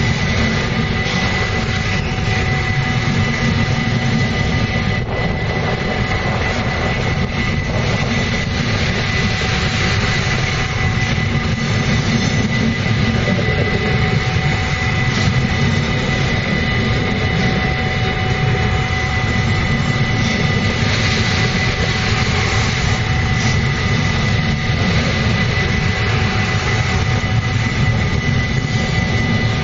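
Freight train of covered sliding-wall wagons rolling past close by: a loud, steady rumble of wheels on rails with a thin steady high tone running through it.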